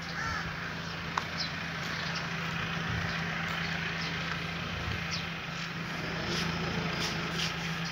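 Outdoor background: a steady low drone under an even hiss, with a few short high chirps and one sharp click about a second in.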